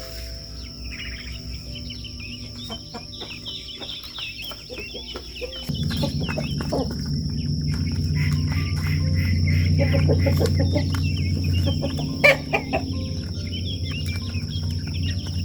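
Chickens clucking with a brood of chicks peeping. About six seconds in, a low steady hum starts and runs on beneath them.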